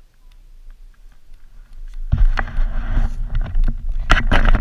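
Rumbling, rubbing handling noise on a helmet-mounted camera as the wearer moves and the helmet tips. It starts suddenly about halfway through, stays loud and uneven, and has a few sharper knocks near the end.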